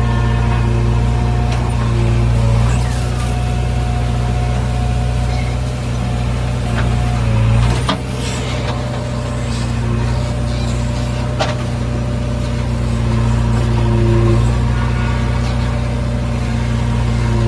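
JCB 3DX backhoe loader's diesel engine running under working load, its pitch rising and falling as the machine works. A sharp clank about eight seconds in and another about eleven and a half seconds in.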